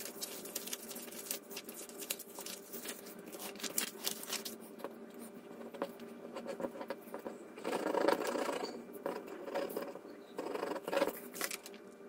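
Sheets of paper being handled on a table: leafing through a stack of patterned papers, sliding and laying sheets down, with light rustles and taps. The rustling grows louder about eight seconds in and again near eleven seconds.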